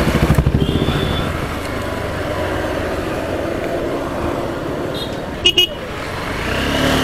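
Wind and road noise from a moving motorcycle, with two short horn beeps in quick succession about five and a half seconds in.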